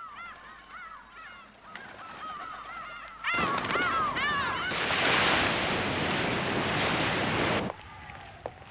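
Crows cawing over and over in short rising-and-falling calls. About three seconds in, a loud rushing noise rises, drowns out the calls and cuts off suddenly near the end.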